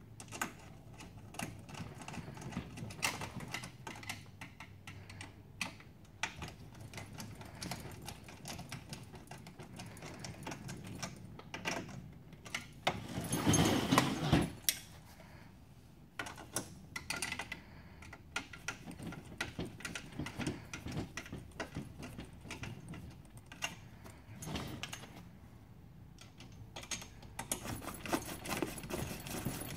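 Small metal clicks and clinks of a nut driver tightening nuts onto bolts through a folding stool's steel leg frame. About 13 seconds in there is a louder scraping and knocking as the stool is turned over on the table, and near the end a run of fast clicking.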